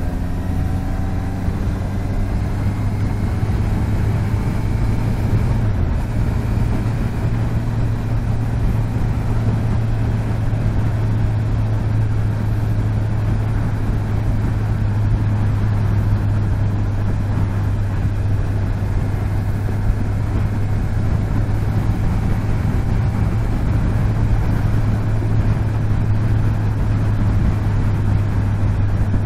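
Honda CBR650F's inline-four engine running under way, with wind and road noise. The engine pitch rises over the first few seconds, dips briefly about six seconds in like a gear change, then holds steady at cruising speed.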